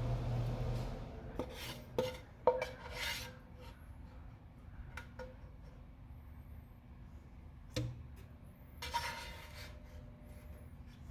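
Kitchen cookware and utensils being handled: a few sharp clinks and knocks, loudest about two and a half seconds in, and two brief scraping rubs. A low hum stops about a second in.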